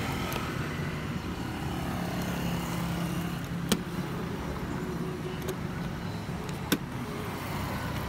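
A motor vehicle engine running steadily, a low hum that is strongest in the first half. Two sharp clicks sound over it, one a little before halfway and another about three seconds later.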